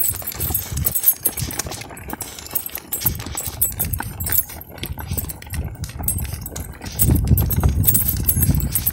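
Hooves of two yoked goats clip-clopping on a paved road as they pull a loaded cart. A louder low rumble comes in near the end.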